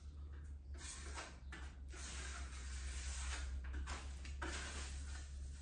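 Repeated scraping strokes of a hand tool smearing and blending tinted putty across a wall into faux-marble veins, each stroke lasting about half a second to a second, over a steady low hum.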